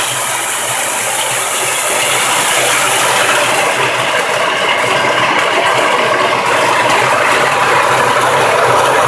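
Walnut-peeling machine running steadily: its electric motor turns the drum while water sprays inside, giving a loud, even mechanical rush over a low hum.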